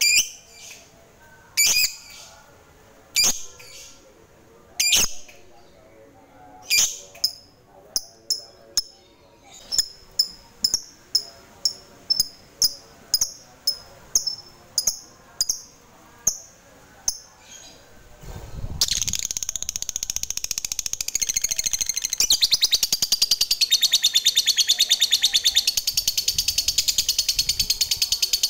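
Lovebird calling: sharp single chirps a second or two apart that quicken to about two a second, then break, about two-thirds of the way in, into a long, fast, rattling chatter, the lovebird's 'ngekek' song.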